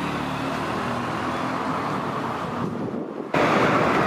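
City street traffic: a motor scooter and cars moving slowly past, their engines running under a steady road hum. About three seconds in, the sound cuts abruptly to louder, hissier street noise.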